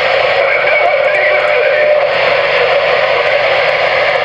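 CB radio receiver hiss and static on an open channel, squeezed into a narrow mid-range band as through a radio speaker, with a couple of faint brief whistling tones.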